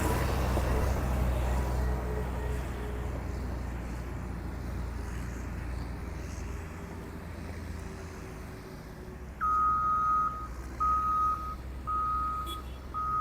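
Heavy vehicle engine running with a low rumble that fades away, then a reversing alarm starts near the end, sounding a steady single-pitch beep about once a second.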